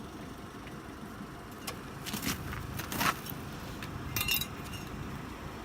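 A few short metallic jangles and clinks, around two and three seconds in and again a little after four seconds, over a low steady rumble.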